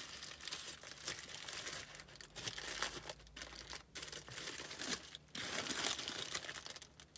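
Paper sandwich wrapper crinkling and tearing as a chicken biscuit is unwrapped by hand, in irregular rustles with a few short pauses.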